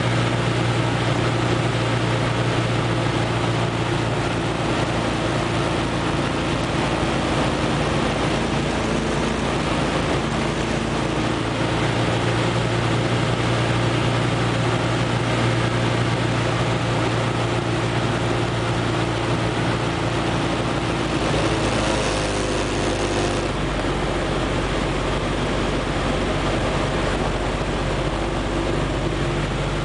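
Propeller engine of a light aircraft running steadily in flight, a constant drone heard from inside the cockpit. About twenty-one seconds in the engine note shifts and a brief hiss rises, then the drone carries on with a deeper tone.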